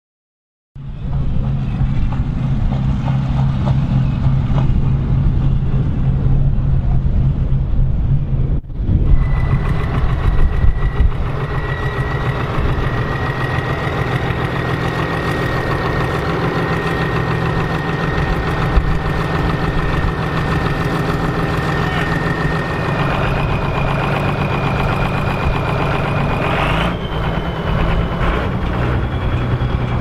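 Volvo BM 810 Turbo tractor's turbocharged diesel engine running, a loud steady deep engine note, after a moment of silence at the start. About a third of the way in, a high, steady turbo whistle comes in over it, and it steps up in pitch twice near the end as the revs rise.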